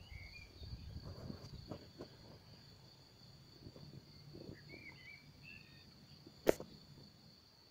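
Faint outdoor ambience: a steady high insect trill, a few short bird chirps, and low rumble on the microphone, with one sharp knock about six and a half seconds in.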